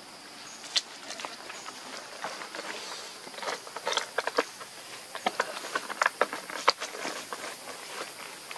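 Scattered small crackles, scuffs and taps of young macaques moving and scrambling about on gritty concrete and dry leaves, busiest in the middle, over a faint steady high hiss of insects.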